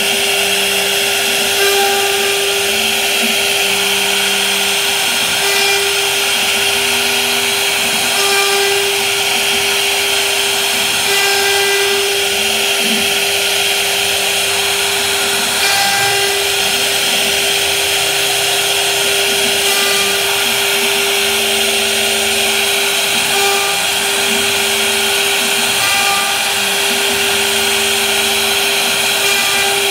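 CNC router spindle running with a steady high-pitched whine as its bit carves grooves into a wood panel. Lower tones come and go every second or two as the cut moves along the pattern.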